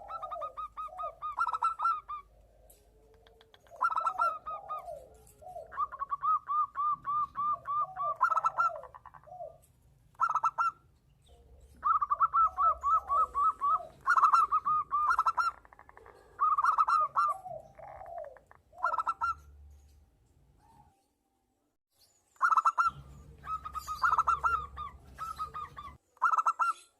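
Zebra doves (perkutut) cooing in repeated phrases of quick trilled notes, with lower curved coos in between. The song stops for about two seconds a little after two-thirds of the way through, then resumes.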